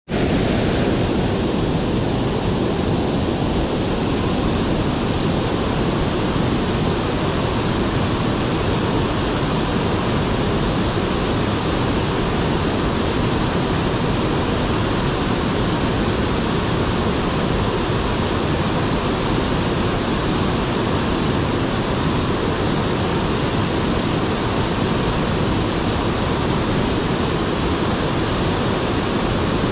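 Waterfall and white-water cascade on a creek rushing steadily, one even wash of falling water with no change in level.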